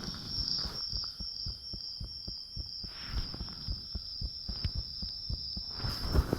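A person's heartbeat recorded up close, a run of low thumps, with a steady high-pitched tone over it. Louder crackling knocks come in near the end.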